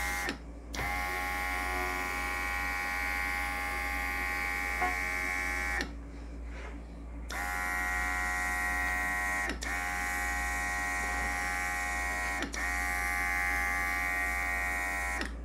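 Cordless handheld airbrush compressor's small motor running with a steady whine over the hiss of air and paint spraying from the airbrush. It cuts out for about a second some six seconds in, and stops very briefly twice more.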